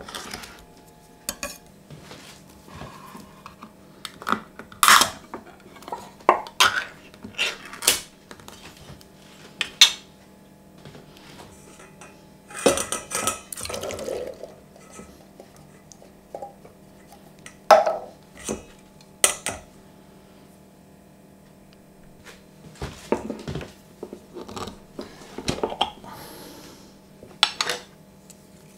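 Kitchen utensils being handled on a wooden board: scattered clinks and knocks of a knife, a stainless steel bowl and a mesh sieve. About halfway through, a few seconds of denser rattling and trickling as tinned chickpeas are drained through the sieve into the bowl.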